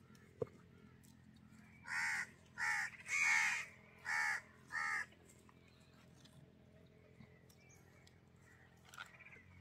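Crow cawing five times in quick succession, each caw short and rasping. A single sharp click comes just before, near the start.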